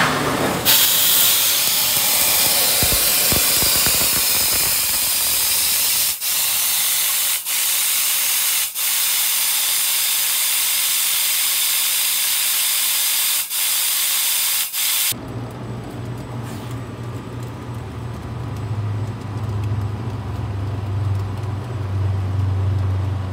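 Fiber laser cutter's assist gas hissing from the cutting head as it cuts a small sheet-metal part, cutting out briefly five times between contours and stopping abruptly about 15 seconds in. A low steady hum remains afterwards.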